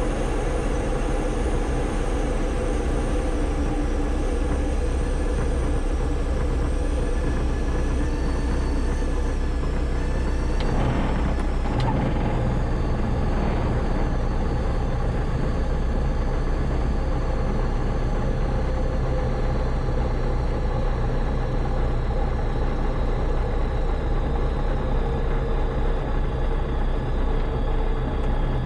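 Diamond DA-20's single piston engine running steadily with propeller, wind and wheel noise while the aircraft rolls out and slows after landing, heard from the cockpit. A short knock comes about twelve seconds in.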